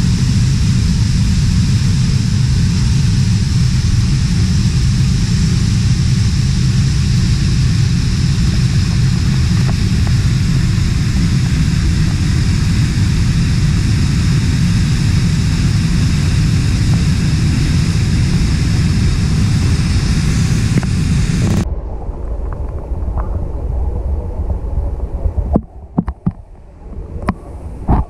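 Steady, loud rush of water flowing over the rocks of a forest stream. Near the end it cuts suddenly to a muffled underwater sound with scattered knocks.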